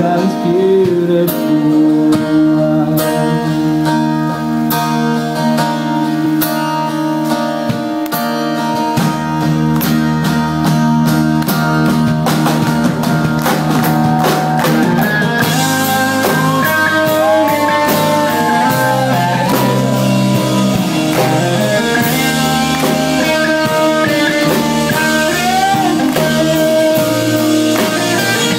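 Live rock band playing: acoustic and electric guitar chords over a steady ticking beat. About twelve seconds in, the full band with drums and cymbals comes in louder, and a singer's voice rises over it from about sixteen seconds.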